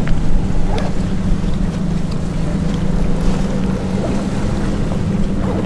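Steady low engine drone carrying across the water, with a few light handling clicks in the first second.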